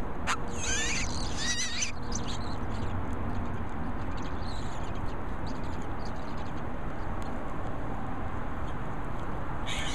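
Western scrub jay nestlings begging to be fed: a burst of high, wavering calls in the first two seconds, fainter calls after, and another short burst near the end, over a steady low background noise.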